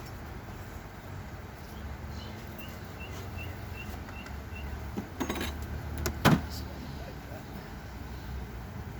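Steady low hum of an agitated honeybee colony with the hive open. About five seconds in, hive boxes knock and scrape together, ending in one sharp wooden knock a little past six seconds. A short run of faint high chirps sounds about three seconds in.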